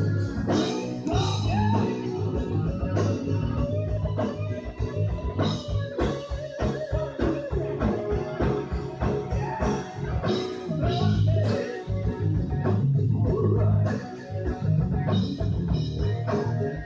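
Live blues-rock band playing: electric guitar with bent notes over bass and a steady drum beat.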